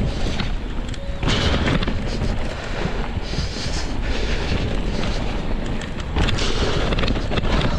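Wind buffeting the camera microphone during a mountain bike ride, with the bike rattling and knocking over a rough trail.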